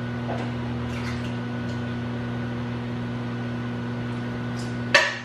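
Steady electrical hum of a running kitchen appliance. A single sharp click comes near the end.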